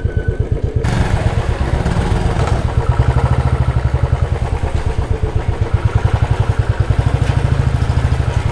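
Royal Enfield Classic 350's single-cylinder engine idling with a steady, even thump.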